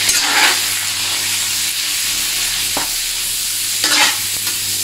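Diced fatty pork sizzling in hot oil in a steel wok as its fat renders out, with a ladle scraping and stirring the pan a few times, most strongly about four seconds in.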